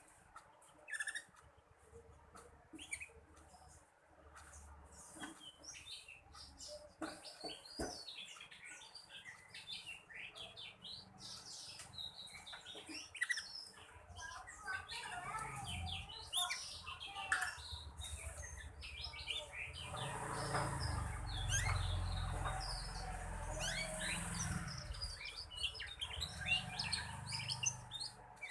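A young black-red canary twittering in quick, high chirps as it learns to warble, sparse at first and much busier from about halfway on. A low rumble sits underneath for a few seconds past the middle.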